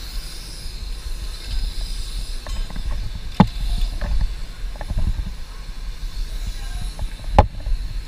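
Wind buffeting a body-worn action camera's microphone high up in open air, a low uneven rumble with some hiss. Two sharp knocks stand out, one about halfway through and one near the end.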